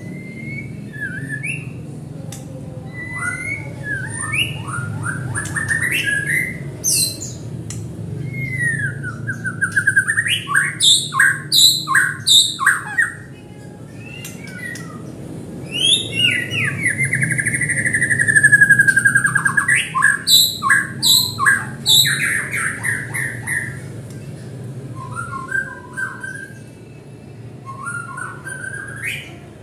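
Long-tailed white-rumped shama (murai batu) singing a loud, varied song of clear whistles, sliding glides and chattering trills. It has two spells of fast repeated notes, around ten seconds in and again around twenty.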